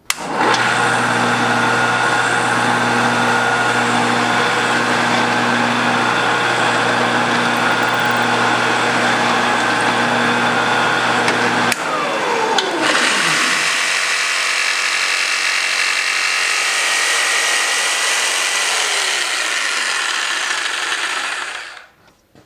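Power tools running: a motor runs steadily with a low hum for about eleven seconds. After an abrupt change a falling whine follows, then a drill press bores holes in a wooden board for several seconds and stops shortly before the end.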